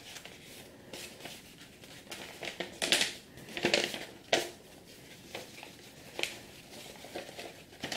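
A folded sheet of paper rustling and crinkling as it is handled and pressed flat, in irregular bursts, the loudest a little under halfway through.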